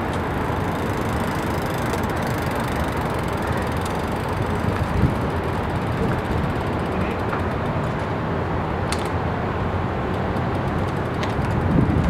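Steady road traffic noise, a continuous rush of vehicles going by, with brief louder moments about five seconds in and near the end.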